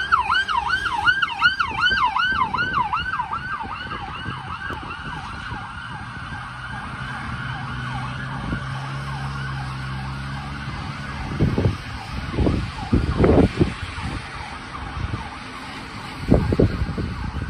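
Emergency-vehicle siren on a fast yelp, rising and falling about three times a second, fading away as the fire department response vehicle drives off. A low engine hum of passing traffic follows, then heavy gusts of wind buffeting the microphone.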